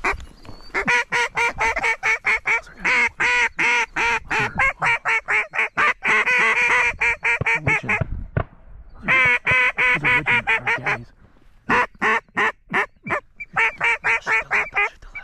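Hand-blown duck call sounding loud, quick runs of mallard-hen quacks in three long strings with short breaks between, calling to ducks circling overhead.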